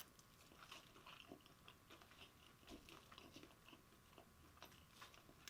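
Faint chewing of chicken wings: scattered soft mouth clicks and smacks.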